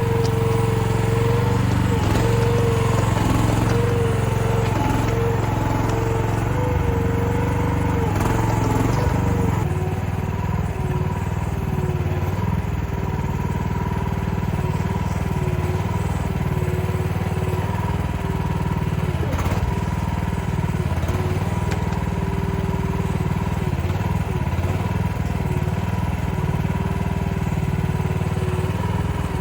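Chinese mini excavator running steadily as it crawls on its tracks up a slope. A steady whining note drops slightly in pitch about ten seconds in.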